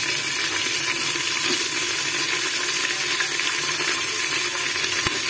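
Sliced onions frying in hot oil with whole spices, a steady sizzle.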